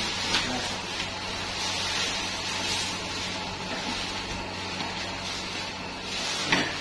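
Steady hissing background noise with a low hum underneath, and a brief light knock about six and a half seconds in.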